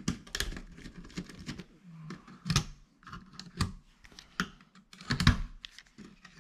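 Irregular plastic and metal clicks and taps of a small screwdriver working the terminal screws of an old wall thermostat's base while its wires are handled, with a few louder knocks, the loudest about five seconds in.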